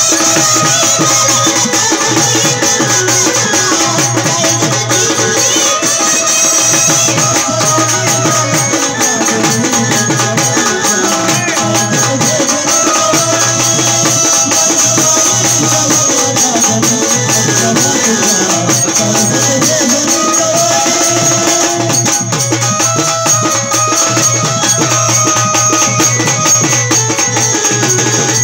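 Waghya-Murali Marathi folk music: a woman singing over rapid drum beats and steady jingling, tambourine-like percussion.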